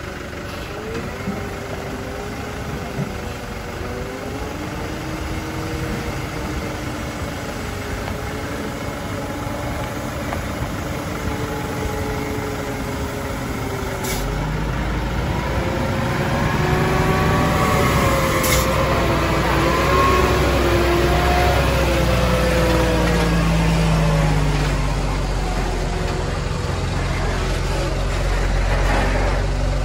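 Diesel engine of a heavily loaded Hino truck pulling slowly past, its pitch rising and falling with the revs. The deep rumble grows louder about halfway through as the truck comes close, with a couple of short sharp sounds along the way.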